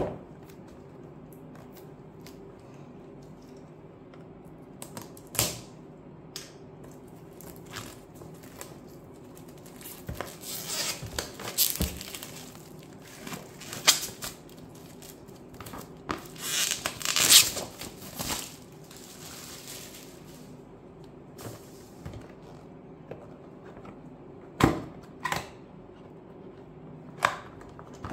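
Clear plastic shrink wrap crinkling and tearing as it is peeled off a cardboard box, loudest in two stretches through the middle. Sharp taps and knocks of the box being handled, a few of them near the end.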